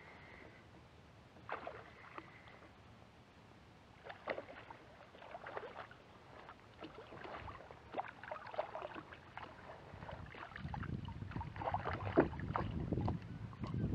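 A hooked fish splashing and thrashing at the water surface beside a kayak as it is reeled in. Irregular splashes come more often and grow louder, heaviest near the end as the fish is brought alongside.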